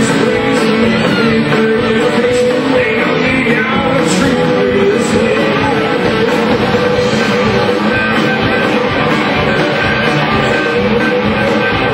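Live rock band playing, with guitars, bass guitar and drum kit.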